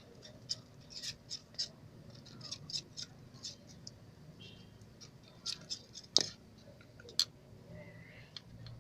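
Homemade slime being stirred and worked by hand with baby oil just added, giving irregular small sticky clicks and squelches, with two sharper snaps about six and seven seconds in.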